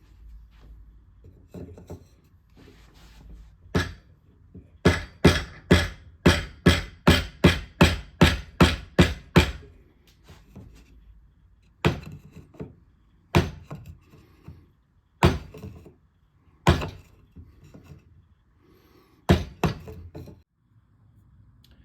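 Wooden block striking the scallops of a Mauser M48's steel front barrel band, driving it forward to break it loose from caked cosmoline. A fast run of about a dozen sharp whacks, two or three a second, then single blows a second or two apart, ending with a quick pair.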